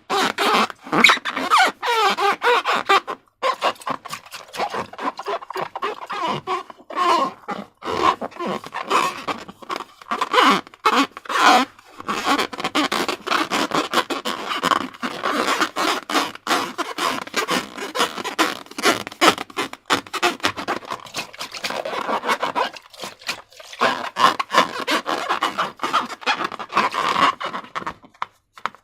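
Sticky slime being squished and worked, making a steady run of quick wet clicks and squelches with brief squeaky glides now and then.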